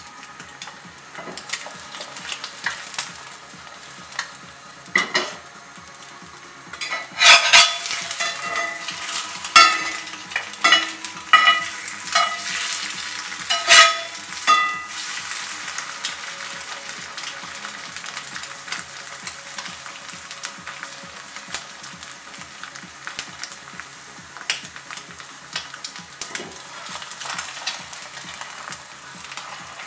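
Egg frying in a Lodge cast iron skillet: a steady crackling sizzle. From about seven to fifteen seconds in, a slotted spatula scrapes and taps against the cast iron in a run of sharp strokes, the loudest sounds here.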